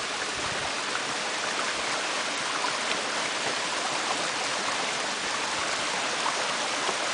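Steady rushing of water from a rocky creek and waterfall.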